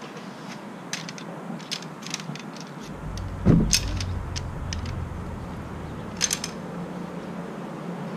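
Sections of a folding canoe's aluminium frame pole being pulled apart and folded together, with a string of light metallic clicks and clinks. About three and a half seconds in there is a thump and a short low rumble.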